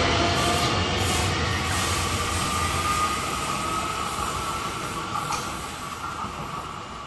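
An ÖBB Cityjet electric multiple unit accelerating away along the track: wheels rolling on the rails under a thin electric traction whine that rises slightly in pitch. The whole sound fades steadily as the train recedes.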